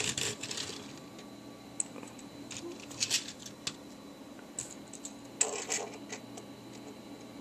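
Faint, scattered light clicks and taps of plastic Lego models being handled and nudged on a wooden tabletop, over a low steady hum, with a brief rustle a little after halfway.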